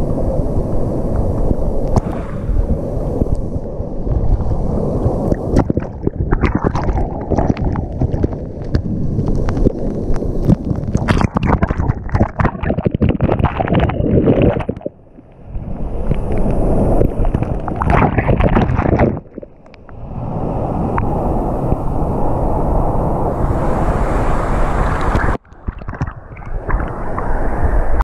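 Waterfall pouring into a rock pool, with water sloshing and splashing against a GoPro held at the surface and dipped underwater among bubbles. Rushing water with many sharp splashes and clicks, breaking off briefly three times.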